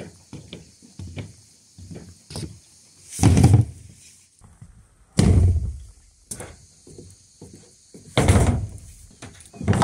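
Hollow bamboo poles knocking and thudding on a plywood deck: three heavy thuds about 3, 5 and 8 seconds in, with lighter knocks and taps between them.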